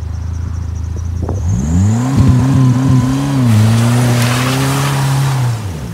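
Turbocharged Chrysler PT Cruiser's four-cylinder engine revving hard as the car ploughs through tall grass. The engine note climbs sharply about a second and a half in, holds high under a growing rush of noise, and falls away just before the end.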